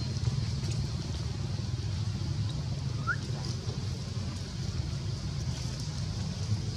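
Steady low outdoor rumble with faint hiss, with one short rising chirp about three seconds in.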